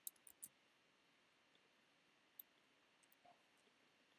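Near silence broken by a few faint computer clicks: three quick ones at the start and another about two and a half seconds in.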